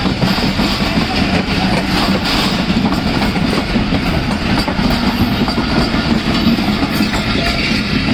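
Pakistan Railways passenger coaches passing at speed close by: a loud, steady noise of steel wheels running on the rails, with irregular clicks as the wheels cross the rail joints.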